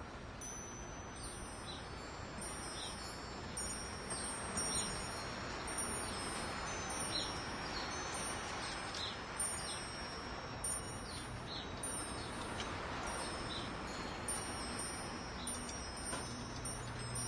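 Metal wind chimes ringing, many high tones struck at random, overlapping and fading, over a steady rushing background noise.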